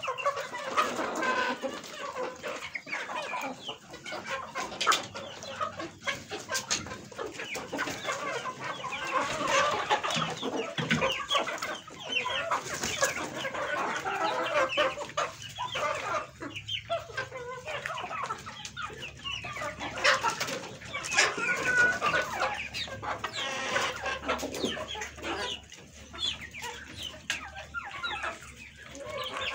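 A flock of chickens clucking and calling, many birds at once in an overlapping, unbroken chatter.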